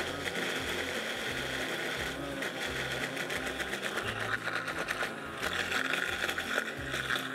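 A powerful countertop blender running at speed, blending a thick avocado and cocoa shake, with a steady motor whine and fast rattling from the contents in the jar. The sound dips briefly about two seconds in and again about five seconds in.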